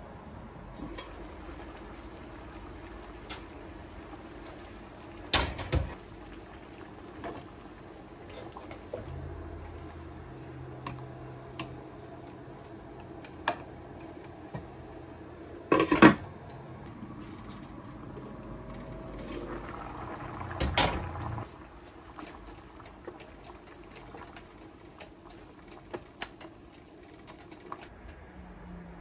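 Water boiling in a stainless steel pot with asparagus blanching in it, while kitchen utensils knock and scrape against the pot. Three louder knocks stand out, the loudest near the middle, and a low hum runs for several seconds in the middle.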